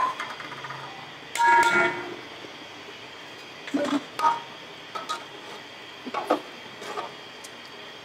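A metal spoon stirring in a cooking pot, striking the pot with a loud ringing clang about one and a half seconds in, then several lighter knocks and scrapes, over a steady hiss.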